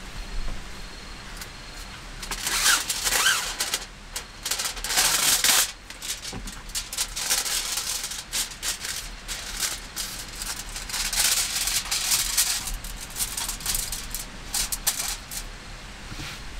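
Plastic packaging and aluminium foil crinkling and rustling as they are handled, in irregular bursts that come and go.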